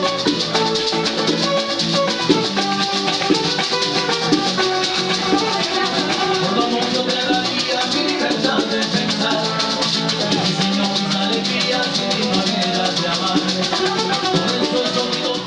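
A live band playing: an acoustic guitar strumming, with maracas shaking a steady rhythm over it.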